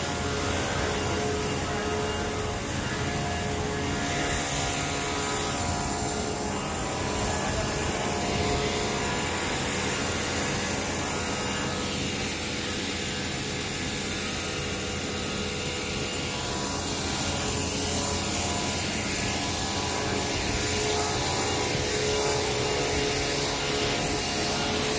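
A steady mechanical drone with a constant high whine, like an engine or machine running without change.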